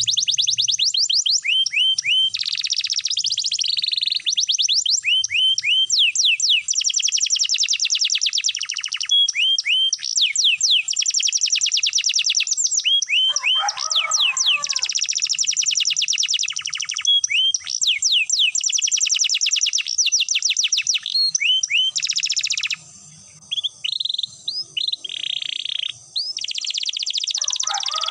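Domestic canary singing long rolls: fast trills of rapidly repeated high notes, broken by short pauses. A lower warbled phrase comes about halfway through.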